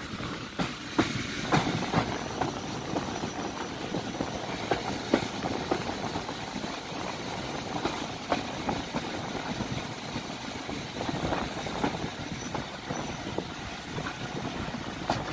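Passenger train carriages running at speed, the wheels clattering over the rails with irregular sharp knocks over a steady running rumble, heard from a carriage window.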